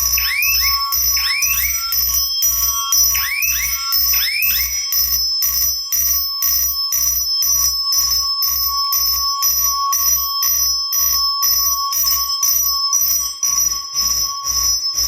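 Fire alarm notification devices sounding in march time, about two strokes a second, including a Simplex mechanical AC chime whose strokes vibrate the wall like crazy. Steady high-pitched electronic tones run underneath, and a repeated rising chirp sounds through the first five seconds.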